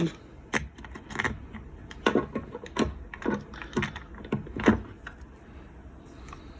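Irregular clicks and knocks of a Viridian laser grip being handled and seated onto a Taurus 856 revolver's grip frame, about a dozen over several seconds, the loudest near the end; the clicking stops about five seconds in.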